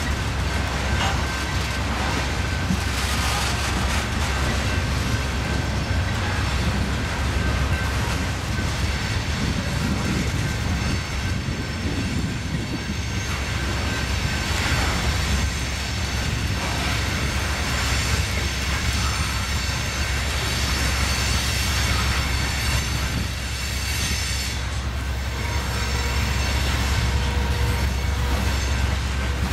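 Freight train cars rolling steadily past at track level: a continuous rumble of wheels on rail, with thin high-pitched wheel squeal running through it.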